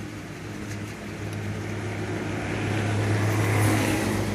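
Car engine running with a steady low hum and a hiss that grows louder toward the end, as the car is inched along while snow chains are fitted to its tires.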